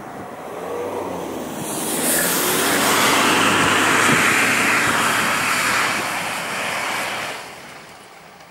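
An off-road SUV drives past close by on a wet, snowy dirt track: its engine runs under load and its tyres churn through slush and mud. The noise swells about a second in, stays loud for several seconds, then fades near the end as the vehicle pulls away.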